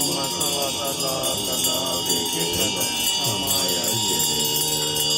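Tibetan Buddhist monks chanting a ritual liturgy together, the melody stepping and bending over a low drone, with a small hand bell ringing continuously.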